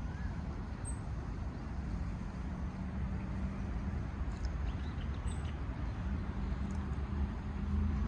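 Steady low outdoor rumble with a faint hum, and two brief faint high chirps about a second in and about five seconds in.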